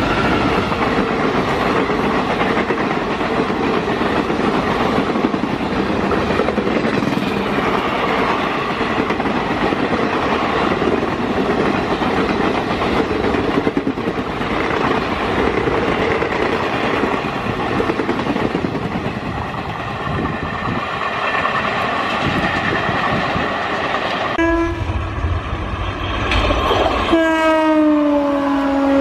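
Indian Railways express train, hauled by an electric locomotive, passing at full speed: a loud, steady rush of wheels and coaches going by. About three seconds before the end another electric locomotive sounds its horn, and the horn's pitch drops and then holds as the locomotive passes.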